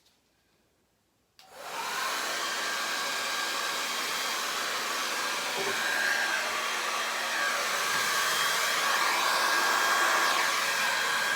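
A hair dryer switched on about a second and a half in, then running steadily: a rush of blown air with a faint whine.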